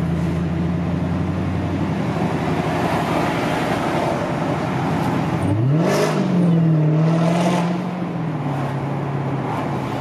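Car engine heard from inside the cabin, running steadily at low revs. About five and a half seconds in the revs climb quickly as the car accelerates away, hold there at their loudest, then ease back near eight seconds.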